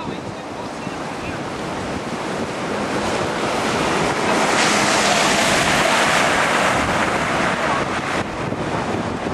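Heavy hurricane-driven surf breaking and rushing ashore, mixed with strong wind buffeting the microphone. The roar swells to its loudest about halfway through, then eases a little.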